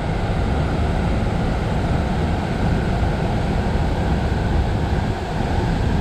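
Waterfall cascading over rock into a pool: a steady rushing of water.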